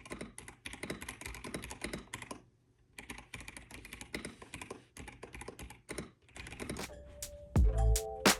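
Rapid typing on a computer keyboard, a quick patter of key clicks with a short pause partway through. Music with deep bass notes comes in near the end.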